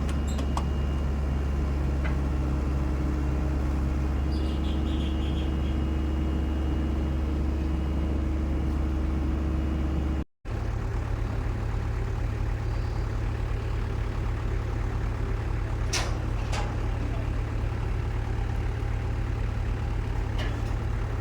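Diesel engine of a SANY SY75C Pro excavator running steadily. It breaks off for a moment about halfway, then carries on with a slightly different tone, and there is a single sharp click later on.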